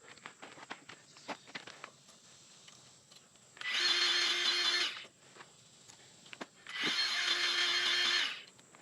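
Milwaukee M12 cordless grease gun running in two bursts, one of about a second and one of about a second and a half, pumping grease into a grease fitting. Light clicks of handling come before them.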